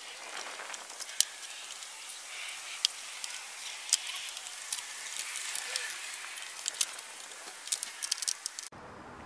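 Plastic trim pieces of a Mini Cooper S front bumper being handled by gloved hands: a run of irregular sharp plastic clicks and taps over a steady hiss, cutting off abruptly near the end.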